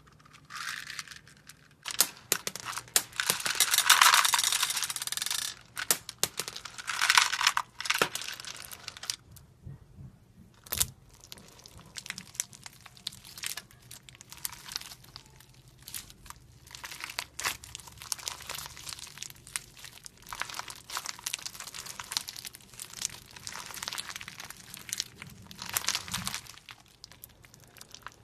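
Hands squishing and kneading clear slime filled with plastic pearl beads: sticky crackling and popping with many sharp little clicks. The crackling is loudest a few seconds in, then goes on in smaller squishes and clicks.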